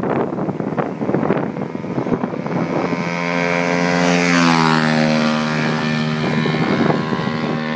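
Pit bike with a single-cylinder 125 cc four-stroke race engine approaching at full throttle on a top-speed run and passing by, its engine note dropping in pitch as it goes past about four seconds in, then fading. Wind gusts on the microphone in the first two seconds.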